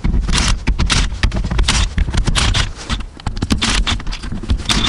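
Ratchet wrench on a long extension clicking in quick irregular runs as the 12 mm perimeter bolts of a Honda Prelude manual transmission case are backed out.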